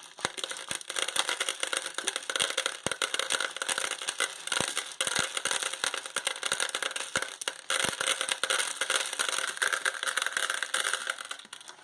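Dry popcorn kernels pouring into a plastic Sistema microwave rice cooker bowl, a dense rattle of many small clicks.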